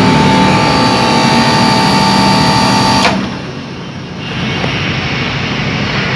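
Air conditioner compressor and fan motor running with a steady hum of several tones, then cutting out suddenly with a click about three seconds in; a steady noise without the tones comes back about a second and a half later. This on-off cycling is what the technician puts down to an undercharge of R22 refrigerant.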